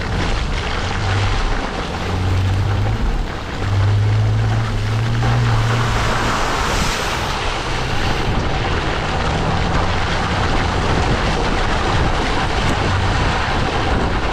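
Off-road vehicle driving over wet mud and shallow water: a low engine hum under a steady rush of tyre and wind noise on a microphone mounted by the wheel.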